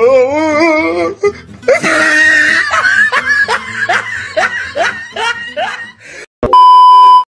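Edited-in laughter sound effect over background music, a wobbling laugh at first and then a string of short rising giggles. Near the end comes a loud, steady, single-pitch beep lasting under a second.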